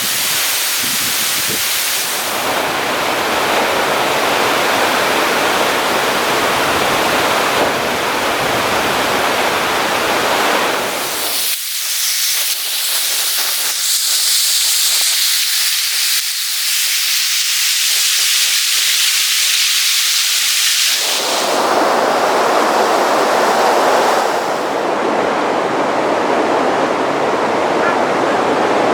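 Waterfall rushing, a steady loud wash of falling water. From about a third of the way in until about two thirds, the deep part of the sound drops away and only a high hiss is left, then the full rush comes back.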